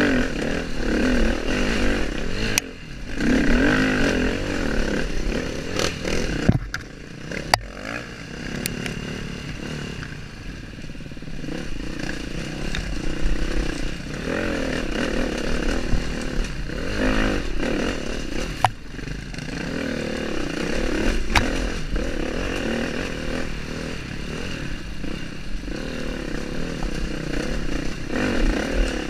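KTM dirt bike engine running hard and revving up and down as the bike picks its way up a rocky trail. A few sharp knocks come from the bike striking stones.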